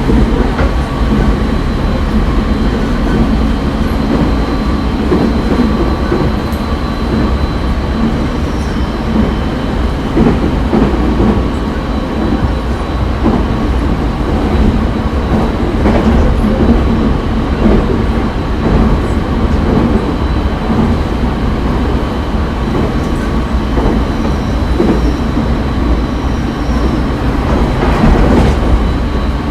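Running sound of a JR East 209 series 500-subseries electric train, heard inside a motor car: a steady rumble of wheels on rail under a faint, steady motor whine, with no change in speed.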